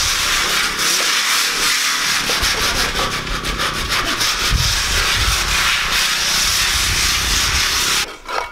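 Continuous rasping scrape of a steel trowel working wet mortar on a wooden mason's hawk, in quick strokes, stopping abruptly near the end.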